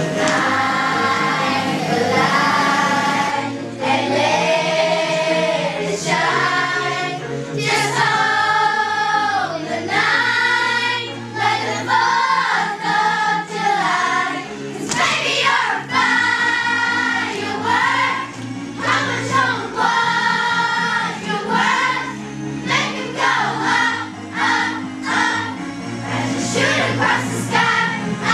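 Children's choir singing a song together, with many young voices and a steady low accompaniment underneath.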